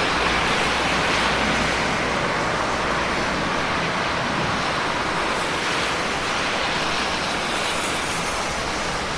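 Steady rain falling, an even hiss with no single drops or crackles standing out.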